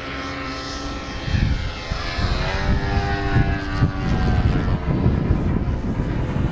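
Engine and propeller of a radio-controlled Extra 300 aerobatic model airplane droning overhead, its pitch shifting up and down in the middle as it manoeuvres. A low rumble grows louder about a second in.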